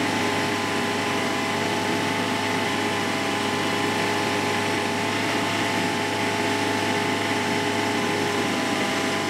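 Honda 15 HP four-stroke outboard motor running steadily on a test stand, an even engine note with constant whining tones above it.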